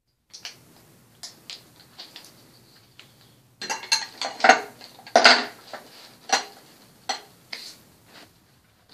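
Hard clicks and clattering of makeup items being handled, picked up and set down close to the microphone. A burst of louder knocking clatter comes about midway, followed by a few single knocks.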